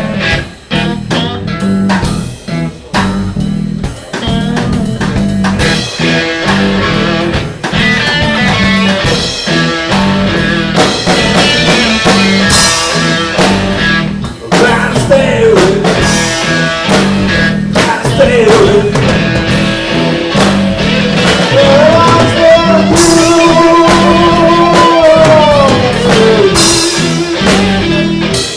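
Live blues-rock band playing an instrumental passage: electric guitar lead over bass and drum kit, with notes sliding in pitch around the middle and a long held note that slides down near the end.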